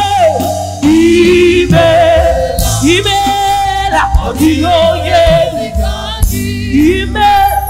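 Gospel praise singing with held and gliding sung notes over band accompaniment with a steady bass line.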